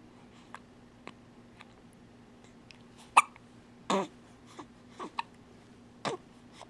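Hiccups: a few faint clicks, then a run of sharp hiccups about a second apart, the loudest a little over three seconds in.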